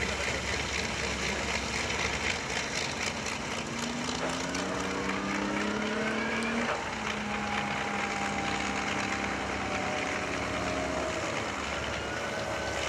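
Lockheed Super Constellation's four Curtiss-Wright R-3350 radial engines running as the airliner taxis. The engine note rises in pitch for a couple of seconds about four seconds in, drops back sharply and then holds steady.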